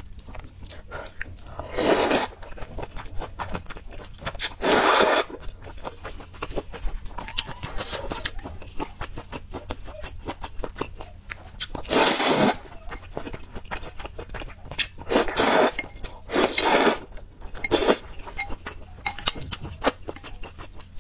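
Close-miked eating of soup noodles: about six loud slurps, each about half a second long, with wet chewing and small clicks in between.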